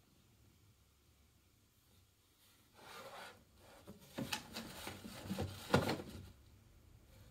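A storage box being shoved by cats, scraping and bumping against the tile floor and wooden shelf: about three seconds of rubbing and knocking that starts a little under halfway in, with the loudest knock near the end of it.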